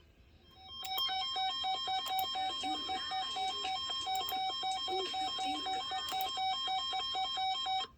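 Electronic emergency-alert attention tone, beeping rapidly in a ringing, ringtone-like pattern for about seven seconds. It starts about a second in and cuts off abruptly. It signals that a severe thunderstorm warning is about to be read.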